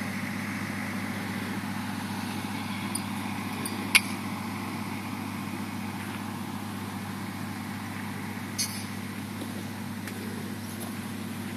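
Steady low hum, with a sharp click about four seconds in and a fainter one later.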